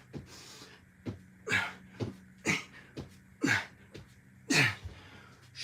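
A person's short, breathy exertion noises, sharp exhales and grunts falling in pitch, about one a second in time with the reps of a bodyweight exercise, over a steady low hum.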